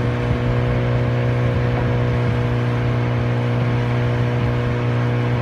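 An engine running steadily at constant speed, a loud low hum with an even drone over it.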